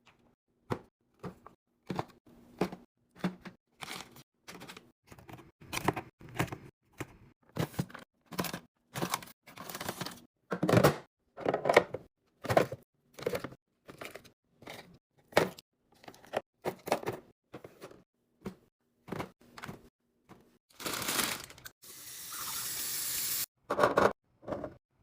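Snacks and drinks being handled and set in place during a restock: a run of quick taps, clunks and crinkles of packaging, about one or two a second, busiest about ten seconds in, with a steady rustling stretch of about two seconds near the end.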